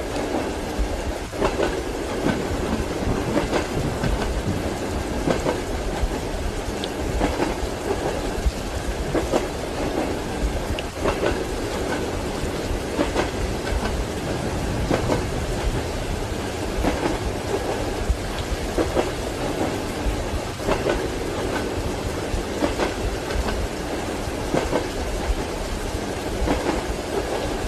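Train wheels clicking over rail joints every second or two over the steady rumble of a moving railway carriage, with rain falling alongside.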